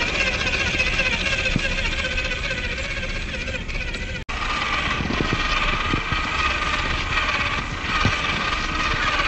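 Electric motor and geared drivetrain of a WPL C74 radio-controlled Jimny crawler whining steadily as it drives over snow. The whine breaks off for an instant about four seconds in and picks up again.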